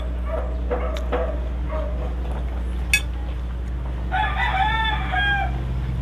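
A rooster crowing once near the end, a long call of about a second and a half, with shorter calls in the first two seconds. A single sharp click about three seconds in, over a steady low hum.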